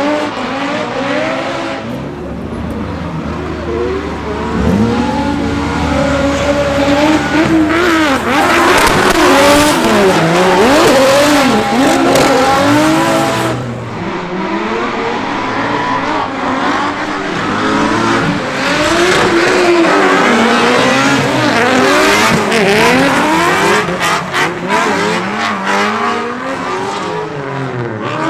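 BMW drift car with an E92 M3 4.0-litre V8 engine, revved hard, the revs rising and falling again and again as it drifts.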